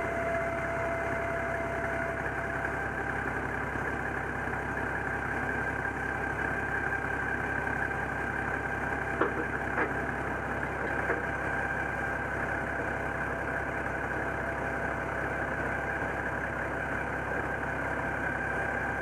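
Four-wheel drive's engine idling steadily, with a few short knocks around the middle.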